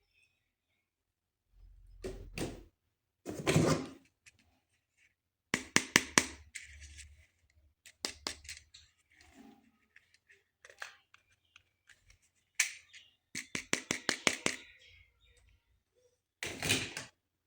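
Hands handling plastic toys and their packaging: irregular clicks, taps and thunks, some in quick runs, with a few short rustles.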